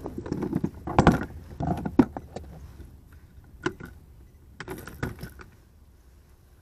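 Metal snap clips of a chain fish stringer jangling and clinking against the plastic kayak deck as a bowfin hooked on it is handled for unhooking: a run of irregular rattles and knocks, loudest about one and two seconds in, dying away after about five seconds.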